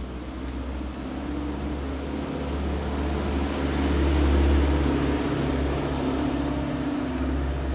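Steady low mechanical hum, louder around the middle, with a few faint clicks near the end.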